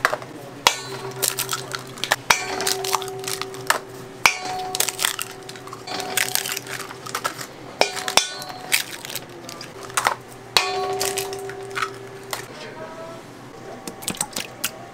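Bakery kitchen work: repeated clanks, knocks and clinks of metal tools and pans, over a steady machine hum that stops near the end.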